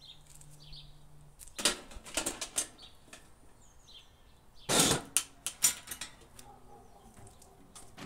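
Stainless-steel pedal bin's lid clanking open with a quick run of metallic clicks and knocks. About five seconds in, a cast-iron Dutch oven scrapes and clunks loudly into the metal bin, followed by a few sharp knocks as it settles.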